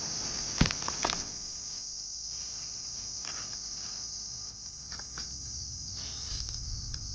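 Steady high-pitched insect chirring, like crickets or cicadas, with a few sharp knocks in the first second.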